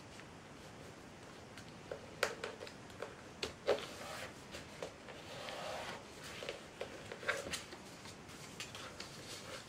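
A sheet of printer paper being folded by hand into a dart paper plane, starting about two seconds in. There are crisp crackles and snaps as the creases are pressed and the paper is handled, with a stretch of sliding rustle in the middle.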